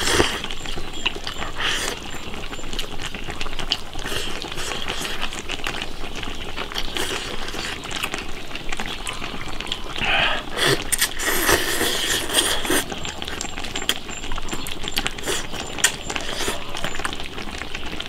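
Spicy fish-head and bullfrog soup bubbling in a large iron wok, a steady bubbling with many small pops, along with close eating sounds of chewing and chopsticks as rice is eaten from a bowl.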